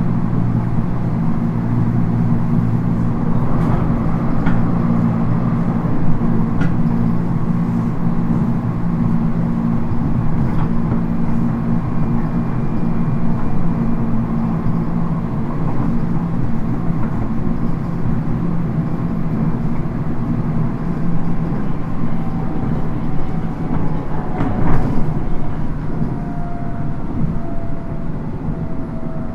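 Inside a JR East 719 series electric multiple unit running at speed: a steady rumble of wheels on rail with a low hum, broken by scattered knocks, the loudest about 25 s in, over track the recordist calls rough and noisy. Near the end a faint tone glides slowly downward.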